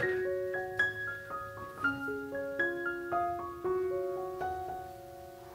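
Background piano music: a slow melody of single ringing notes that grows quieter near the end.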